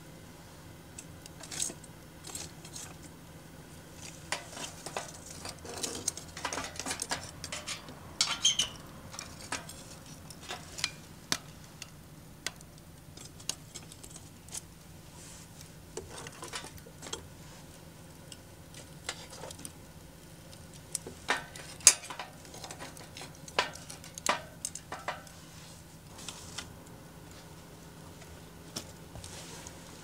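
Charcoal fire crackling under and on top of an aluminium mess tin, with irregular sharp ticks and pops scattered through, in clusters at times.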